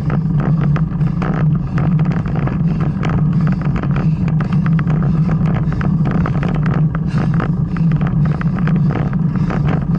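Riding noise picked up by a camera on a moving bicycle: a steady low drone with many irregular clicks and rattles throughout.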